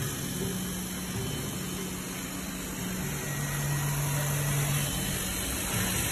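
Laser cutting machine running while it cuts plastic sheet: a steady machine hum over a constant hiss, its low tone switching between two pitches every second or two.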